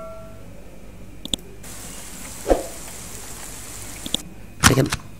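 Punch sound effect played back as a preview from an online sound library: a short hiss with one dull hit in the middle, after a sharp click.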